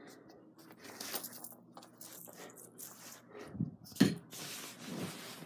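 Rustling and light clattering of household things being picked up and moved around while tidying a room, with one sharp knock about four seconds in.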